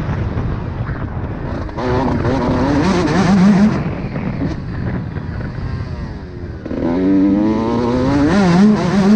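Suzuki RM 125 two-stroke motocross engine breathing through a Pro Circuit exhaust, ridden hard. The revs climb and wobble quickly with the throttle, fall away in a long dropping note from about four seconds in, then the throttle snaps open again near seven seconds and the revs climb.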